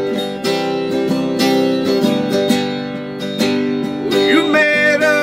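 Acoustic guitar strummed steadily, about two strums a second, ringing chords between sung lines.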